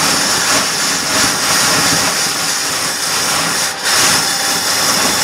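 Dodge 318 V8 with a one-barrel carburetor running steadily just after a cold start on full choke. The fast idle has not kicked up, so it sits at its low idle.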